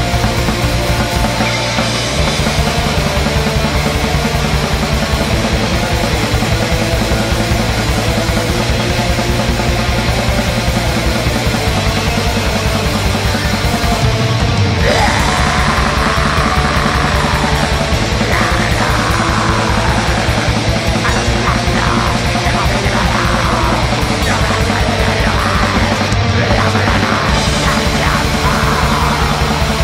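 Black metal recording: rapid, dense drumming under loud distorted guitars and stepping bass notes.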